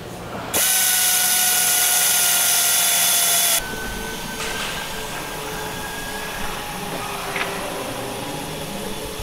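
Pneumatic air drill running for about three seconds with a steady high whine that sags slightly in pitch, drilling rivet holes in an aircraft panel. It stops abruptly, leaving a quieter steady hum of the workshop hall.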